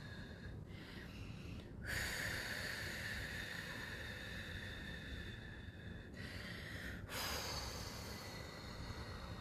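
A person breathing out long and forcefully through the mouth, two drawn-out hissing breaths that start sharply and slowly fade.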